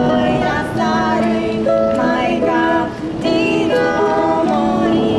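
Live ensemble music: several melodic lines moving in held notes, with short breaks between phrases.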